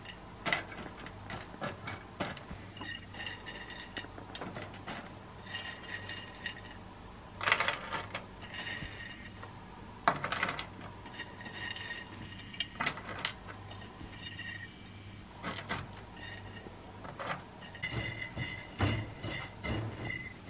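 Kitchenware clinking and knocking: a run of light clicks and short ringing clinks, with sharper knocks about a third and halfway through, over a steady low hum.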